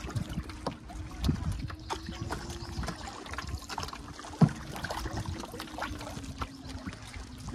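Water trickling and lapping against a plastic canoe's hull as it is paddled, with irregular knocks of the paddle and hull. The sharpest knock comes about four and a half seconds in. A faint steady hum runs underneath.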